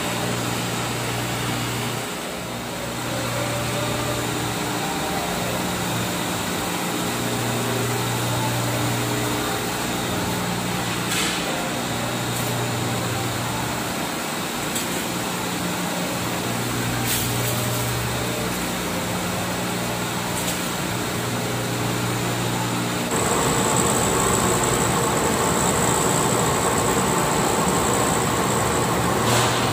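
Glass edge-polishing machine running with a steady motor hum and the grinding of its wheels on the mirror edge, with a few faint clicks. About three-quarters of the way through, the sound gets louder and a steady high whine joins it.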